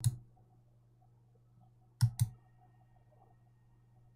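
A sharp click, then a quick pair of clicks about two seconds later, over a faint low steady hum.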